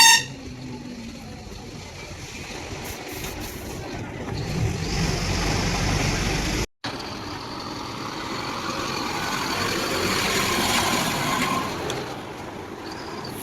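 Heavy diesel excavator working, its engine noise swelling twice as it works under load. A sharp loud burst sounds right at the start, and the sound cuts out completely for a moment about halfway.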